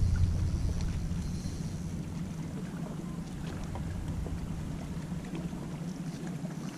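A low, steady engine drone that fades over the first two seconds, leaving a faint hiss of wind and water.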